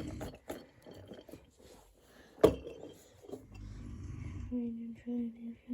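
A man snoring in the background, a low rumbling snore at the start and another about three and a half seconds in. There is a sharp click about two and a half seconds in, and a run of short humming tones near the end.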